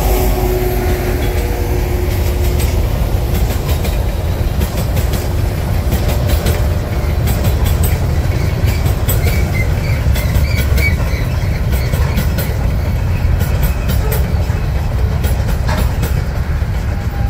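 A long freight train of empty covered hopper cars rolling past: a steady low rumble with irregular clicks and clatter from the wheels and cars.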